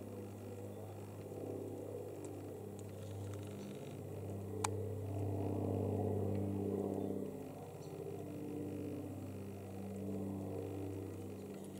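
A steady engine hum with a low, even pitch that swells and eases a few times, and a single sharp click a little under five seconds in.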